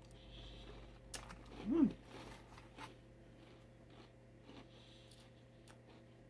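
Quiet closed-mouth chewing of crunchy cereal, with a few faint crunches and clicks, and a short hummed "mm" about two seconds in. A low steady hum runs underneath.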